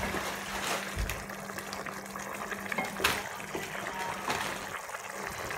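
A thick stew bubbling and simmering in a pot, stirred with a wooden spatula, with a few sharp clicks of the spatula against the pan. A faint steady hum runs underneath.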